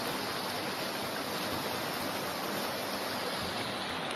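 Muddy floodwater rushing in a torrent down a street, a loud, steady rushing noise.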